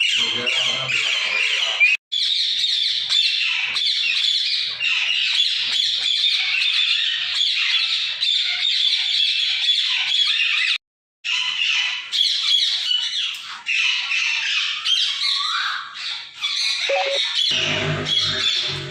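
Many parrots squawking and chattering at once in a dense, continuous din. The sound cuts out completely twice: briefly about two seconds in, and for about half a second around eleven seconds in.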